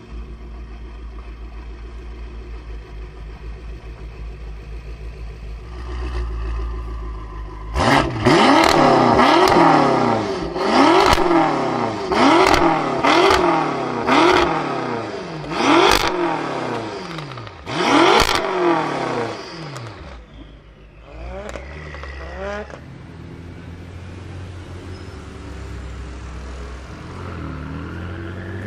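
BMW M5 F10's twin-turbo V8 idling, then revved hard in quick blips, about one every second, with sharp exhaust pops at the peaks. It then runs low and steady at low speed, its pitch climbing near the end as it accelerates.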